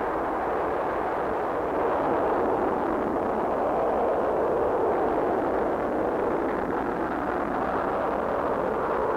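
Atlas-Agena rocket engines at liftoff: a steady, continuous rushing rumble that swells slightly about two seconds in.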